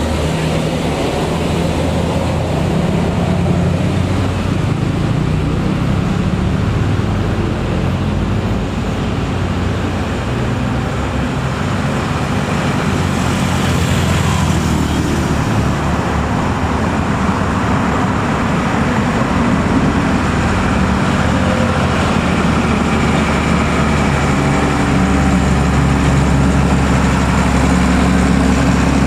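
Mercedes-Benz box truck's diesel engine pulling steadily up a climb, getting louder near the end as the truck comes close and passes.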